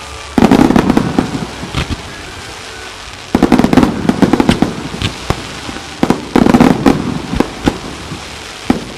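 Starmine fireworks: volleys of aerial shells bursting, three heavy rounds about three seconds apart, each a dense run of sharp bangs and crackling. Another volley starts near the end.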